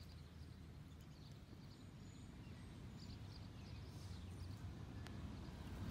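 Quiet rural outdoor background: a low steady rumble with a few faint, brief high chirps and one faint click near the end.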